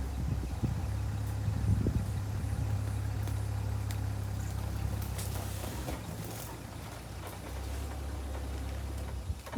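Safari vehicle engine running steadily at low speed, a deep even hum, with a few light knocks and clicks over it.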